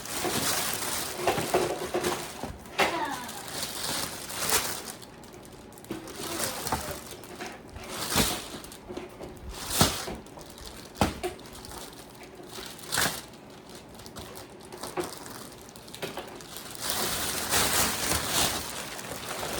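Rustling and crinkling of a shopping bag and firework packaging being handled, with scattered sharp knocks and taps as packaged items are picked up and set down.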